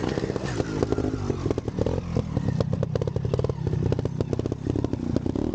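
Vintage trials motorcycle engine running at low revs, its pitch rising and falling as the throttle is worked on and off, with sharp irregular clattering through it.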